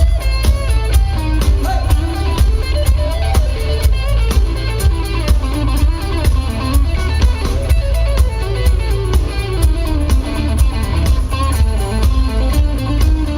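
Live rock band playing an instrumental break: a lead guitar line winding over a steady bass and drum beat, loud and bass-heavy.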